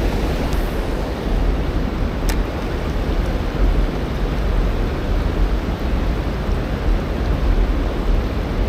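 Steady rushing of white-water river rapids below a dam, with a low rumble underneath and a single faint click about two seconds in.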